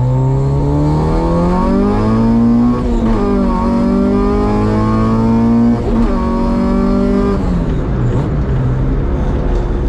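H22-swapped Honda Civic's four-cylinder engine accelerating through the gears. The revs climb and drop sharply twice at quick upshifts, about three and six seconds in, then ease off to a lower steady drone near the end.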